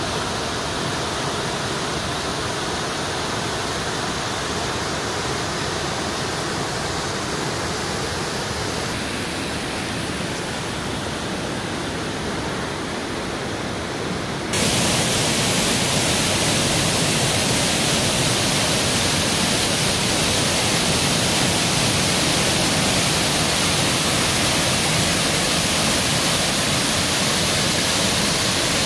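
Waterfall and river water rushing steadily. About halfway through it cuts abruptly to a louder, fuller rush of the falling water up close.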